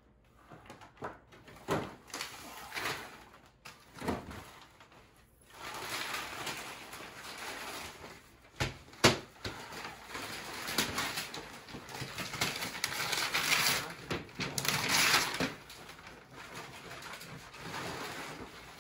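Gift wrapping paper crinkling and tearing as a present is unwrapped, with a few knocks in the first seconds and one sharp snap about nine seconds in.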